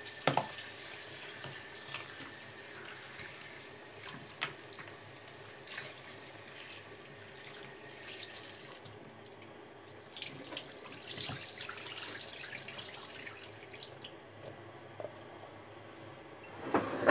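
Kitchen tap running into a sink while frozen chickpeas are rinsed under it to wash off the ice, with a few light knocks. The flow stops about halfway through, runs again for a few seconds, then fades.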